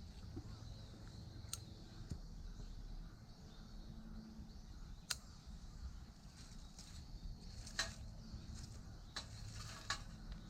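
Faint wood fire crackling in a compact fire stand: a few sharp pops over a low, steady outdoor rumble.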